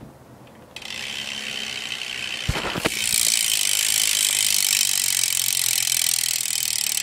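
BMX bike's rear hub ratcheting fast as the wheel freewheels: a dense run of pawl clicks. It gets louder after a knock about three seconds in, as the wheel is spun again, and stops abruptly at the end.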